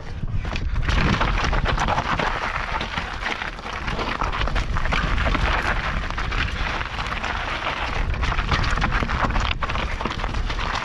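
Mountain bike tyres crunching and skidding over loose rock and gravel on a rough descent, with the bike rattling and knocking over the bumps as a dense, continuous crackle.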